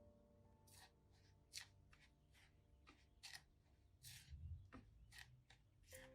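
Faint, irregular short scraping or rubbing strokes, about a dozen, over quiet background music.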